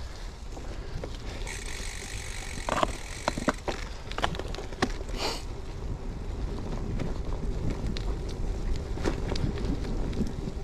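Gravel bike rolling over a rough dirt track, with a steady low rumble of tyres and wind on the microphone. A few sharp knocks and rattles from the bike come about three seconds in.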